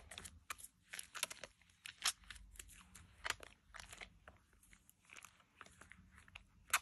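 Thick Dove shea butter soap lather squished and squeezed by wet hands, crackling and popping as its bubbles burst. The crackles thin out in the second half, with one sharper crack near the end.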